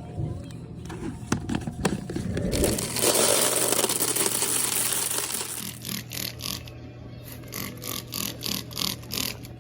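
Cleaning cloth wiping down a vending machine's surfaces. A steady hiss lasts about three seconds in the middle, then come quick, even wiping strokes, about three a second.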